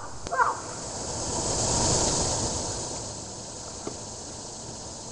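Gust of wind rushing across the microphone and through the trees. It swells up, peaks about two seconds in, then fades away.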